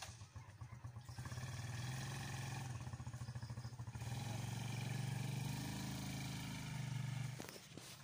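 Cicada calling: a noisy buzzing drone that pulses rapidly at first, then holds steady and cuts off sharply about seven seconds in.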